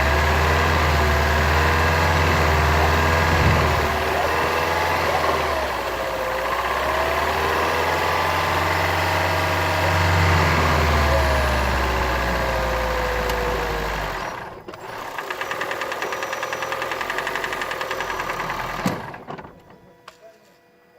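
Toyota Prius 1.5-litre four-cylinder petrol engine running with a wavering pitch, then cutting out suddenly about 14 seconds in. A fast, even ticking follows for about four seconds and ends in a single thump, after which it goes quiet.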